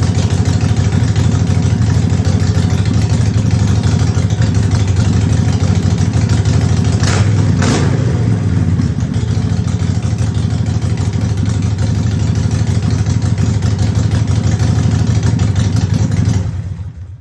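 2010 Harley-Davidson Sportster Forty-Eight's 1200 cc air-cooled V-twin idling steadily, with two short sharp sounds about halfway through; the engine is shut off just before the end.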